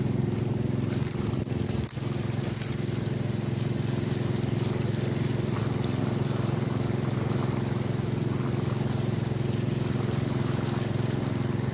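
Small engine of a 3-inch 'alkon' irrigation water pump running steadily at constant speed, with a brief dip in level about two seconds in.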